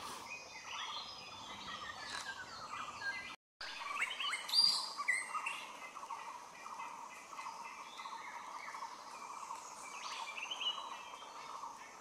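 Forest birds chirping and calling in short, scattered phrases over a steady background drone. The sound cuts out for a moment about three and a half seconds in.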